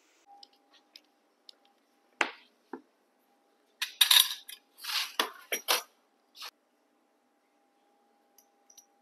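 Metal utensil clinking and scraping against a pan and a plate in a scatter of short knocks, busiest about four to six seconds in, as cooked fish slices are lifted out and plated. A faint steady hum runs underneath.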